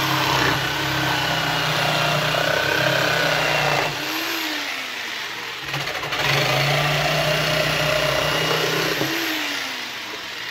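Bauer orbital jigsaw with a fine blade, set to its first orbit setting, cutting through a pallet board. The motor runs steadily, winds down about four seconds in, starts again about two seconds later, and winds down again near the end.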